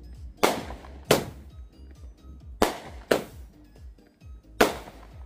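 Aerial fireworks firing: five sharp bangs of shells bursting overhead, coming in pairs about half a second apart, a pair roughly every two seconds.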